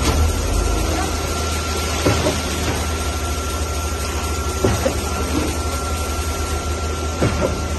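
Concrete pump truck running at a steady din while concrete pours from the mixer chute into its hopper, with a heavy knock about every two and a half seconds as the pump strokes.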